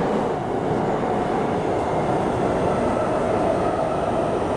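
MTR IKK-train electric multiple unit running at speed, heard from inside the passenger car: a steady rumble of wheels and running gear.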